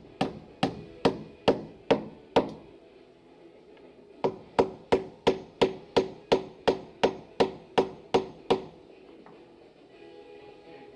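Hammer driving nails into wood framing: a run of about six even blows, a pause of nearly two seconds, then about a dozen more at a little over two blows a second, each with a short ring.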